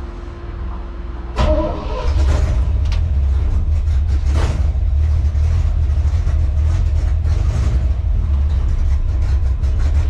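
A 1966 Chevy C10's small-block V8 cranks briefly, catches about a second and a half in, and settles into a steady, loud idle. The truck starting on its newly installed under-dash wiring harness shows the harness works.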